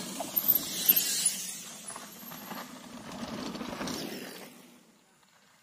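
Two mountain bikes passing one after the other on a dirt trail: tyres on dirt, with chain and freewheel clicking and rattling. The first pass, in the first second and a half, is the louder; the second comes about three seconds in, and the sound dies away by about five seconds in.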